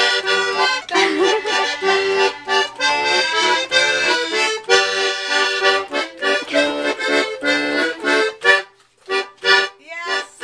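An old accordion being played: a tune of held chords and melody notes, which breaks off into a few short notes near the end.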